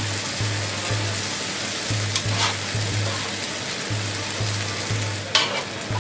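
Chopped vegetables and tomato sizzling in a frying pan as boiled spaghetti goes in and is stirred with a wooden spatula. Short scrapes of the spatula come about two seconds and five and a half seconds in.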